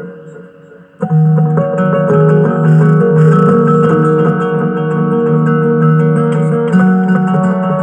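Acoustic guitar improvisation built up with a loop station: plucked notes layered over one another. The sound dies away in the first second, then the layered guitar pattern comes back in suddenly and loudly about a second in and carries on.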